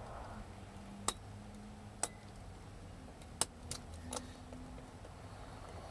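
Small sharp metal clicks, five at uneven intervals, as the tailpiece nut on the back of a Kwikset deadbolt cylinder is turned tight with a locksmith's pick.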